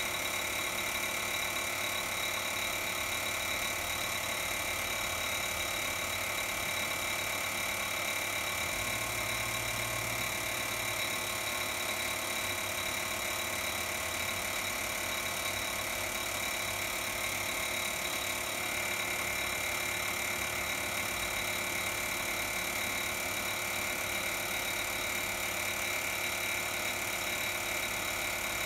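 A steady, unchanging machine-like hum with constant high-pitched tones running through it; no hammer strikes.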